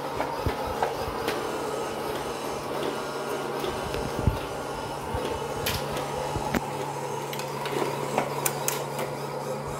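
Robot floor cleaner running with a steady motor hum, with scattered knocks and clicks as kittens climb on and bump its plastic body; a heavier thump about four seconds in.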